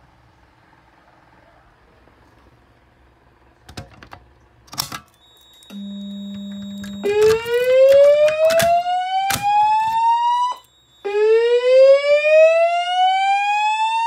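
Fire alarm voice-evacuation slow whoop from a Notifier digital voice command (DVC) panel played through a wall speaker-strobe: two long rising whoops, each climbing for about three and a half seconds, with a short break between them. It is the alert tone that goes ahead of the recorded evacuation message. A few clicks and a brief steady low tone come first.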